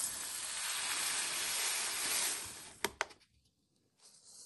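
Lechuza TerraPon mineral granules poured from a plastic cup into a wire-mesh sieve: a steady hissing trickle for about two and a half seconds that fades out, followed by a single light click.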